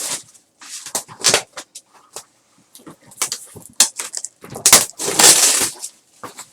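Plastic shrink wrap being slit and torn off a sealed box, in irregular crinkling, ripping bursts; the loudest, longest rip comes about five seconds in.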